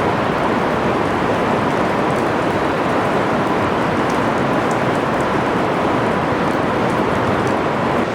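Heavy rain falling steadily in a thunderstorm, an even hiss with a few faint ticks of drops.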